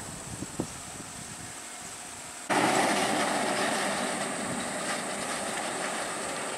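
A faint low vehicle rumble, then, about 2.5 s in, a sudden jump to the loud, steady rumble and rattle of a heavy tipper lorry's diesel engine running close by.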